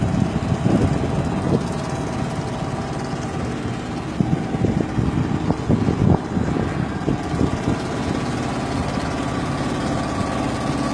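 Small motorboat's engine running steadily, with a few irregular knocks about four to seven seconds in.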